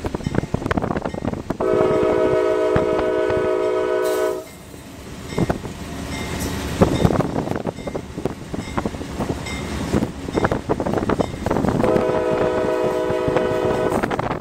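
Diesel locomotive's air horn sounding two long blasts, each a chord of several steady tones, the second coming about eight seconds after the first.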